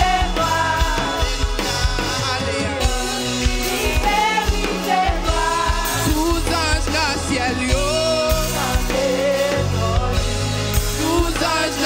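A woman singing a Haitian Creole gospel worship song with a live band: drum kit with cymbals, electric guitar and keyboard.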